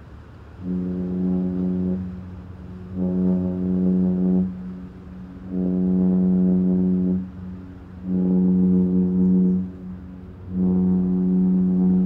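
MSC Grandiosa cruise ship's horn sounding five blasts of about a second and a half each, about a second apart, all on one low, steady pitch with overtones.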